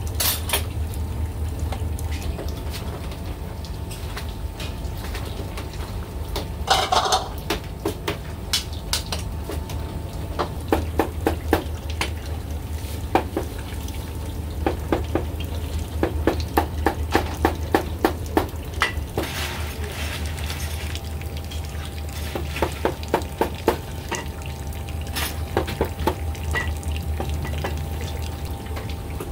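Cleaver chopping beef brisket on a wooden chopping board: runs of sharp knocks, about four a second, in several bursts. Between them come clinks of a ladle and bowls, over a steady low hum.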